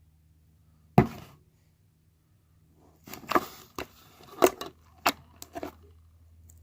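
Hard objects knocked and set down: one sharp knock about a second in, then a run of clacks and taps over a few seconds.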